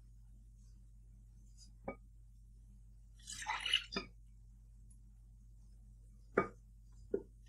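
Plant milk poured from a glass jug into a glass mixing bowl of flour, splashing briefly for under a second. A single click comes before it, and a few sharp knocks of kitchenware follow, two of them near the end.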